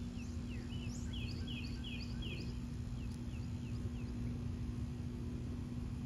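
A songbird singing a run of short, clear down-slurred chirps, about three a second, loudest in the middle and dying away about four seconds in. Under it runs a steady low hum and rumble.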